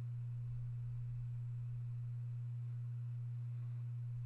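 Steady low electrical hum on one unchanging pitch.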